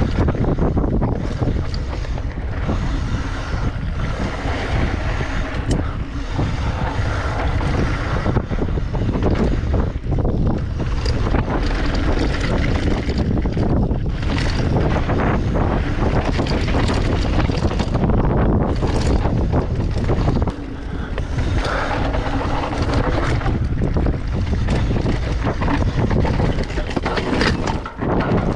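Heavy wind buffeting the microphone over a continuous low rumble, with frequent knocks and rattles throughout; the level drops briefly about two-thirds of the way through.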